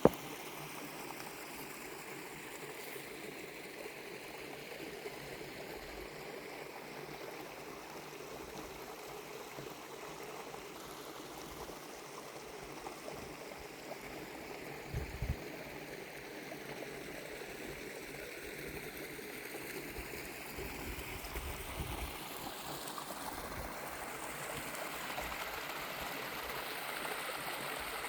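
Mountain stream water rushing and splashing over rocks below a small waterfall, a steady even wash of sound. A brief low bump about halfway through.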